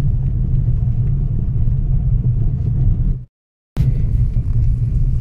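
Steady low rumble of a car driving on an unpaved dirt road, heard from inside the cabin. The sound cuts out completely for about half a second a little past three seconds in, then resumes.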